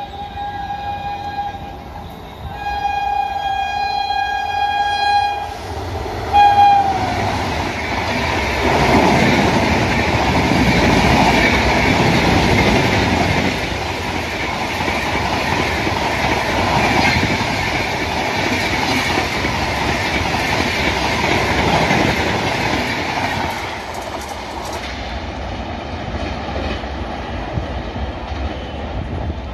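A locomotive horn sounds in long blasts, the last one dropping sharply in pitch about six seconds in. Then a high-speed train of LHB passenger coaches rushes past close by, wheels clattering over the rail joints, easing off near the end.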